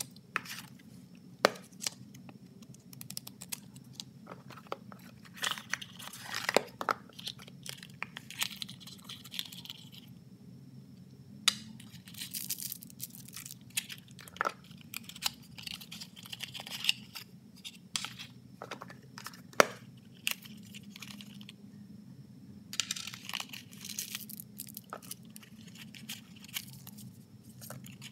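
Cardboard and paper packaging being handled and torn open by hand: irregular rustling, crinkling and tearing of paper wrappers, with sharp clicks and taps as cardboard boxes and small parts are set down on a wooden table. A faint low hum lies underneath.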